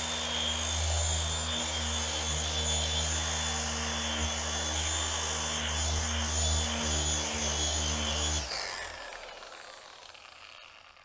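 Porter-Cable dual-action polisher with a 3-inch foam pad running steadily, a low hum with a high whine, as it works compound into car paint. It is switched off about eight and a half seconds in and the sound fades away as the pad winds down.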